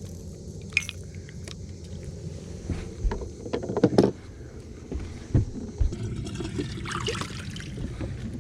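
Knocks and thumps on a fishing boat while a hooked bass is brought in, the loudest about three to four seconds in, over a low steady rumble, with a short rush of higher noise near the end.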